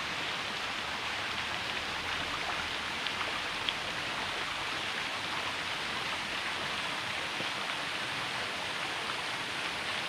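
Waterfall rushing steadily, a constant hiss of falling water, with one short click about three and a half seconds in.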